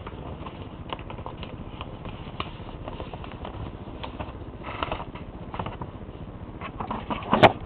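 Sheet of paper being folded and creased by hand: scattered small crinkles and taps, a longer rustle about five seconds in and a sharper crackle near the end.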